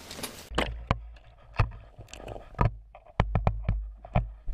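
About ten irregular sharp knocks and taps over a low rumble, coming faster near the end.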